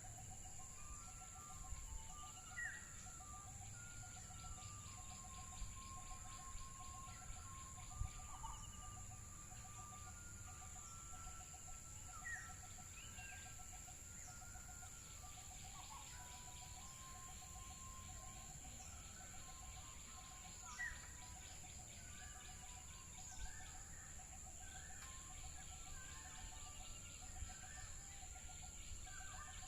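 Birds calling over a steady high-pitched hum: short rising chirps and held whistled notes, with a low pulsing note repeating about three times a second throughout.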